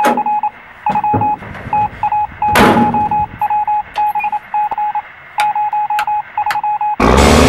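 Electronic warning beeper in a truck cab: a steady tone chopped into irregular beeps, with sharp clicks between them and one louder thump about a third of the way in. Loud guitar-driven music cuts in near the end.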